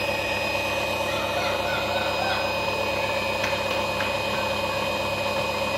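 Washing machine universal motor running at a steady speed under a TDA1085 phase-control speed circuit, with a constant high whine over its hum.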